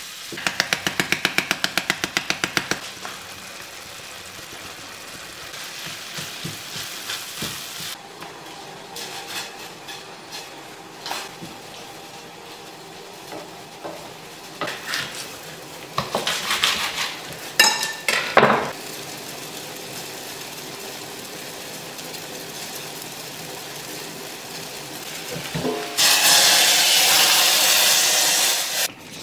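Food frying in a pan on a gas hob, with a spatula stirring and clinking against the pan. It opens with a quick run of about eight taps a second, and near the end a loud, steady burst of sizzling hiss.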